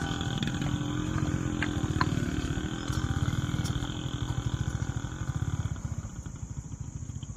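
A vehicle engine running with a steady, rapidly pulsing low throb and a slightly wavering pitch, as on a slow climb over rough ground; a few faint clicks sound about two seconds in.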